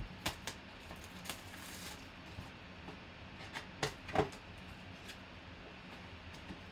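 Plastic shrink wrap and a cardboard trading-card box being torn open and handled: scattered crinkles, rustles and light clicks, the loudest pair about four seconds in.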